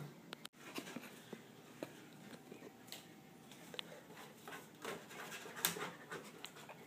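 Quiet panting breaths, with scattered light clicks and rustles.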